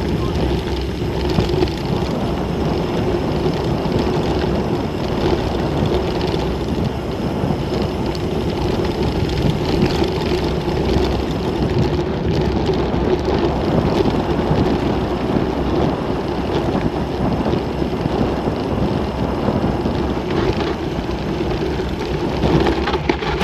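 Wind rushing over an action camera's microphone, mixed with the tyres rumbling and the bike rattling on a loose gravel track as a mountain bike descends at about 30 to 35 km/h. The noise is loud and steady throughout.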